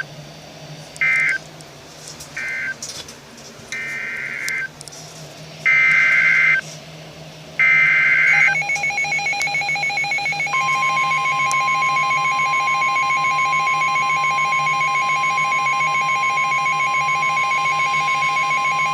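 Emergency Alert System tones on NOAA Weather Radio: three short bursts of data screech, then three longer bursts of SAME header data. About eight seconds in, a pulsing electronic alarm starts, and from about ten seconds it is joined by the steady 1050 Hz weather radio warning alarm tone.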